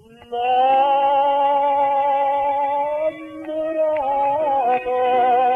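Instrumental break in a song: steady held chords with no voice, the notes shifting about three and four seconds in.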